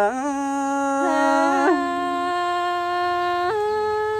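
Tai Dam folk duet singing: long, drawn-out held notes in a man's voice, then about three and a half seconds in a woman's higher voice takes over with a sustained note.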